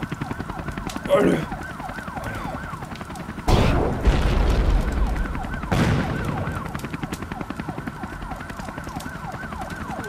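Several sirens wailing at once, their rising-and-falling wails overlapping. Two heavy explosion booms come through them, about three and a half seconds in and again about two seconds later; the first has a long low rumble.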